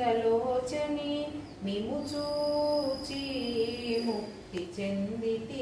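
A woman singing a Telugu devotional puja song, one voice in long held notes that step slowly up and down.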